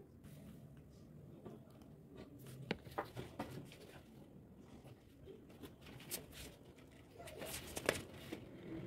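Pine boards handled and knocking lightly together, a few faint wooden clicks, then a sharper wooden knock near the end as an upright post is set down into the bed rail.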